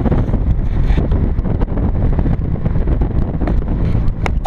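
Wind rushing over the microphone and road rumble from a moving car. A loud air horn blast starts abruptly right at the very end.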